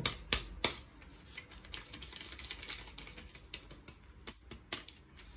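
Small paper sachet of baking powder crinkling and ticking as it is opened and emptied over a glass bowl. A few sharp crinkles come in the first second, followed by scattered lighter ticks.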